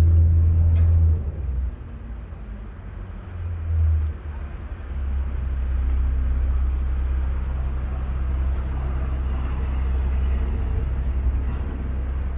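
A vaporetto water bus's diesel engine runs with a low drone, over the wash of water along the hull. The engine eases off about a second in and builds up again to a steady drone from about five seconds in.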